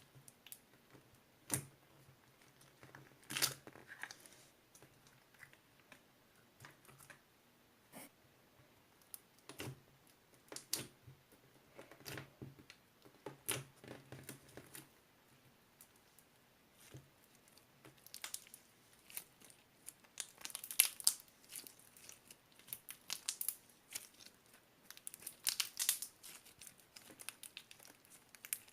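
Crinkling and tearing of paper or plastic being handled at close range, in scattered short bursts that grow denser and brighter in the second half.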